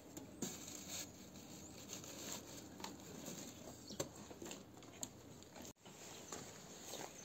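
Faint scraping and tapping of a steel trowel working wet cement mortar as bricks and a pipe fitting are set in place, with a sharper knock about four seconds in.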